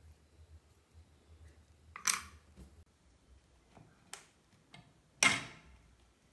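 Two sharp knocks about three seconds apart, the second louder, from handling the homemade scroll saw: cut pieces of copper-clad board being set down on its metal table and a hand at its control box.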